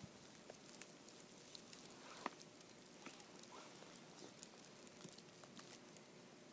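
Near silence with faint, scattered ticks and light crunches, and one sharper click a little over two seconds in.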